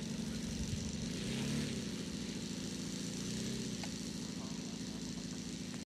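Saito FG-60R3 three-cylinder four-stroke radial petrol engine of a large-scale RC model plane running at low throttle on the ground, swelling briefly about a second and a half in.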